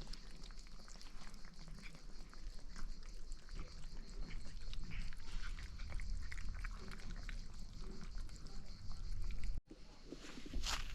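Farmyard animal sounds, with many short clicks and scattered calls over a low rumble; the sound cuts out for a moment about nine and a half seconds in.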